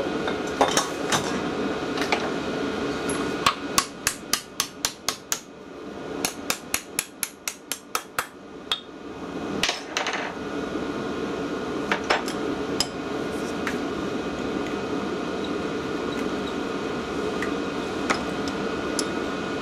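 Hammer tapping on steel, a fast run of light blows at about four a second, then a few single knocks, working a long-seized part loose from a vintage tractor's fuel injection pump held in a bench vise. A steady fan hum runs underneath.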